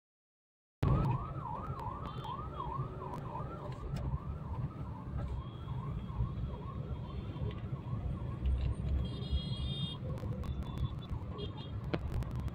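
Emergency vehicle siren warbling rapidly, about two and a half swoops a second, cutting in about a second in and fading away over the following seconds. Underneath is the low rumble of road and engine noise heard from inside the moving car's cabin.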